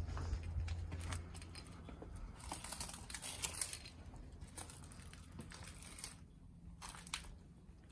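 Footsteps crunching over burned debris and rubble, with irregular crackles, clicks and rustles that are densest a few seconds in.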